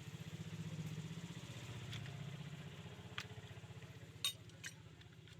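An engine running at a steady, fast low pulse that swells and then slowly fades. Three sharp clicks come in the second half, the loudest a little past four seconds in.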